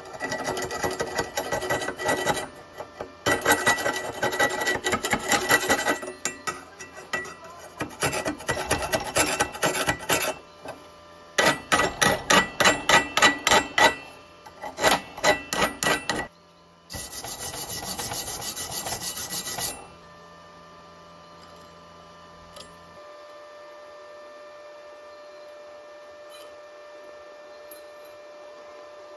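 Wire brush scrubbing slag off a freshly laid flux-core weld on steel plate, in several bursts of quick back-and-forth strokes with short pauses between them. The scrubbing stops about two-thirds of the way through, leaving only a faint steady hum.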